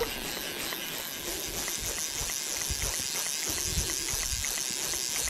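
Fly reel's click-and-pawl ratchet ticking steadily, about three to four clicks a second, starting about a second in, over wind buffeting the microphone.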